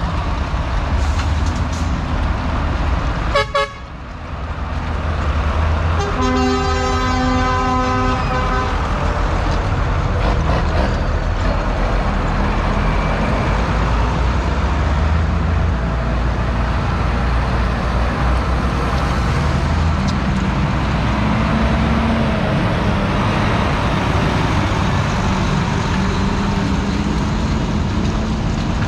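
Diesel engines of a heavy lorry and a procession of farm tractors running as they drive past. A vehicle horn sounds once for about two and a half seconds, about six seconds in.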